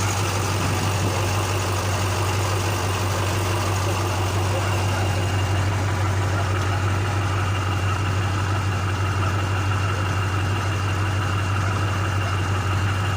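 KamAZ truck's turbocharged diesel engine idling steadily after a turbocharger repair, with a faint steady high whine over the low, even running.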